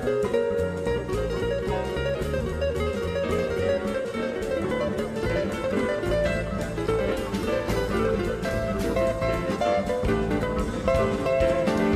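Background music led by a plucked acoustic guitar, over a steady bass line.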